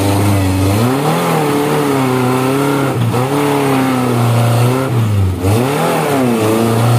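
Suzuki four-wheel-drive off-roader's engine revving hard under load as it climbs a steep dirt bank, its pitch swinging up and down several times, with a brief dip about five seconds in.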